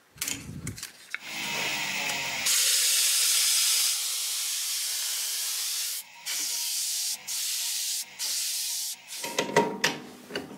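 Wood router running and cutting a spiral thread into a birch blank on the metal lathe: a steady high hiss that breaks off briefly four times. A few knocks and clatter come near the end.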